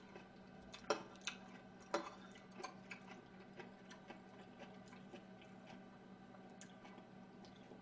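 Metal spoon clinking and scraping against a ceramic rice bowl: scattered light clicks at irregular intervals, a few of them sharper, about a second and two seconds in.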